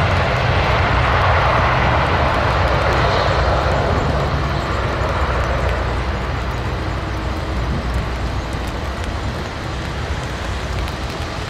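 Lockheed C-130H Hercules' four Allison T56 turboprops at takeoff power: a loud steady propeller roar with a low hum underneath, fading gradually as the aircraft rolls away down the runway.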